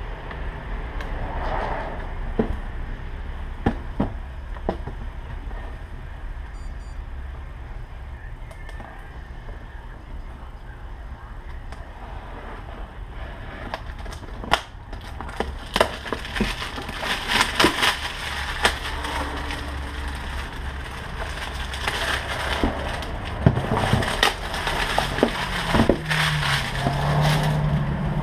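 Unboxing: a blade cutting packing tape, then a cardboard box and plastic packaging being handled, rustling and crinkling. There are scattered sharp clicks at first, and the crinkling grows denser about halfway through.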